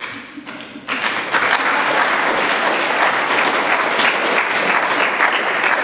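Audience applauding: scattered claps at first, swelling about a second in into steady, full applause from a large seated crowd.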